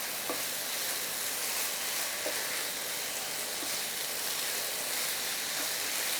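Minced beef with carrots and green pepper frying in a pan: a steady sizzling hiss.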